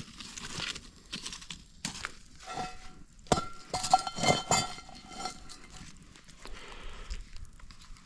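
Rustling and knocking of camp gear being handled, with a cluster of louder clinks about two and a half to five seconds in that ring briefly, like metal or glass objects knocking together.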